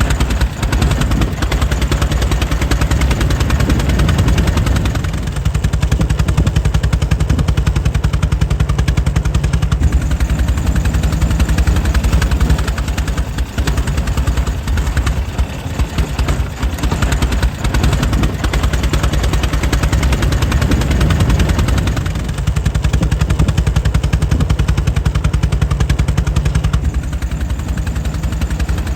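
Air-cooled 1904 Mitchell engine running steadily: a rapid, even train of firing beats.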